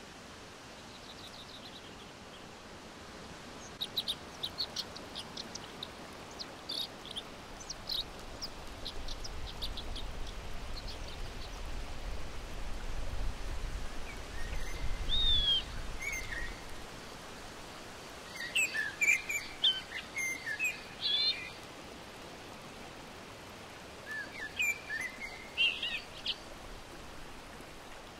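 Several small birds chirping and whistling in scattered bursts, with a quick run of short calls early and busier chirping later, over a steady rushing of river water. A low rumble rises for several seconds midway.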